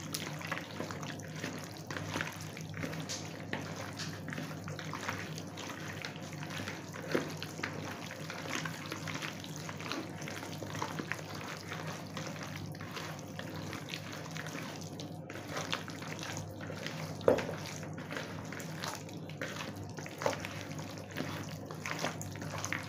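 A hand squishing and kneading raw chicken pieces in a wet curd-and-spice marinade in a plastic bowl: irregular wet squelching and smacking, with a few louder slaps about 7, 17 and 20 seconds in. A low steady hum runs underneath.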